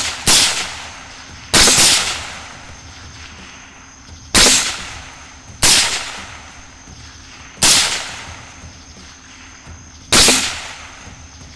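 Six rifle shots fired in irregular succession, one to two and a half seconds apart, each trailing off over about a second.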